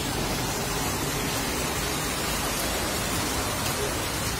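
Heavy rain and floodwater running across a street, an even, steady hiss of water.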